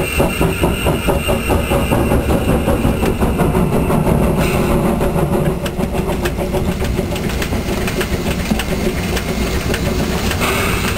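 Metre-gauge steam locomotive working hard up a grade, heard close up from just behind it: its exhaust beats from the chimney in a quick, even rhythm.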